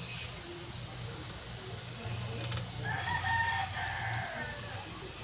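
A rooster crowing once, about three seconds in: a single drawn-out call lasting a little over a second, over a low steady hum.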